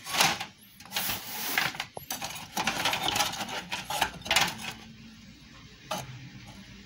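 Rubbing and scraping with light metallic clicks from hands and the phone moving over the open amplifier's aluminium heatsink and chassis. It dies down about five seconds in, with one more click about a second later.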